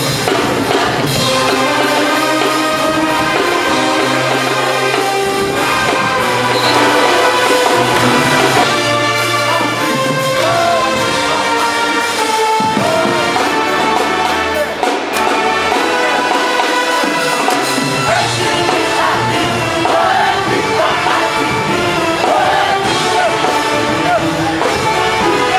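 Loud music with brass and singing over a bass line that steps from note to note.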